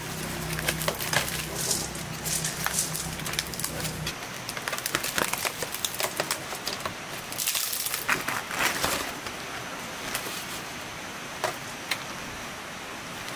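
Aluminium foil crinkling and crackling as it is peeled open by hand from around a baked whole fish, in irregular handfuls that thin out after about nine seconds.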